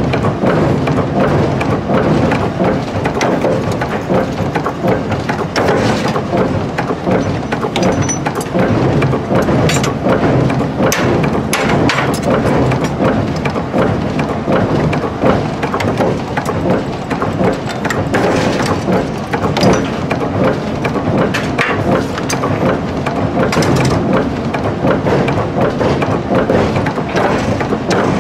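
Mechanical forging press in an axe forge pounding hot steel between its dies, a dense, loud clatter of rapid metal blows.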